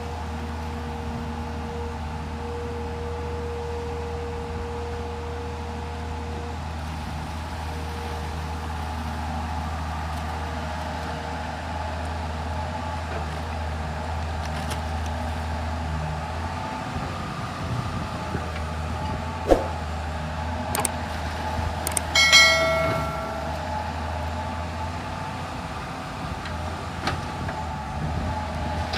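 Excavator's diesel engine running steadily, with a sharp knock and, about three-quarters of the way through, a short metallic ring.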